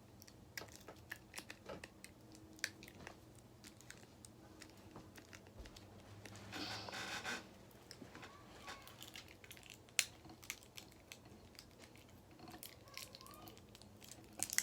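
Plastic toy packaging being handled and worked at to open it: faint scattered crinkles and clicks, with a brief louder rustle about seven seconds in and a sharp click near ten seconds.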